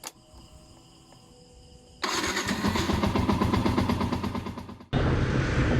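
Faint insect chirring, then about two seconds in a motorcycle engine starts and runs with a fast, even pulse. Near five seconds it cuts abruptly to louder running with a deep hum.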